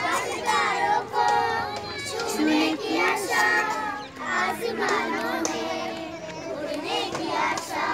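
A group of children singing a song together, several voices at once with held notes, over crowd noise.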